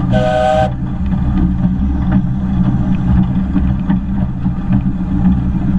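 A short blast on a steam locomotive's whistle, several steady tones over a hiss, that ends under a second in. Then the steady rumble of the 15-inch-gauge steam locomotive 'Northern Rock' running along the line.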